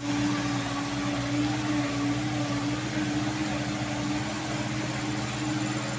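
Diesel engine of a Mitsubishi Canter truck loaded with oil palm bunches, running steadily under load as it pulls up a muddy slope.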